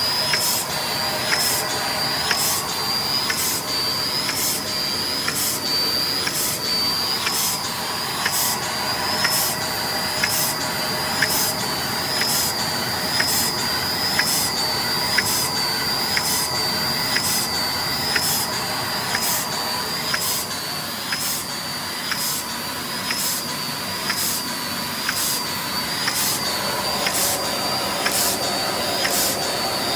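Automatic capsule filling machine running: a steady mechanical whir and whine with a regular click about one and a half times a second as the machine cycles.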